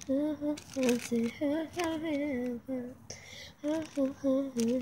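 A girl humming a tune, with no words, in short held notes that step up and down. A few short crackles sound in between the notes.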